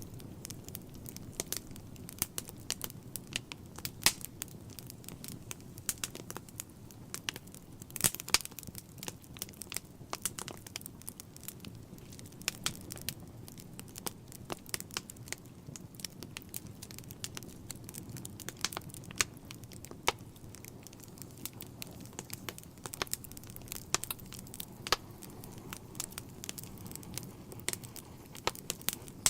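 Wood fire in a fireplace crackling, with irregular sharp pops over a low steady rumble; the loudest pops come about 4 and 8 seconds in.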